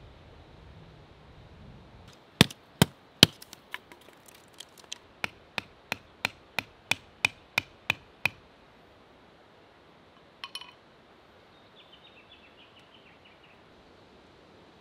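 A run of about twenty sharp knocks like hammer strikes: three loud ones first, then a steady beat of about three a second with a slight ring. A brief clink follows a couple of seconds later.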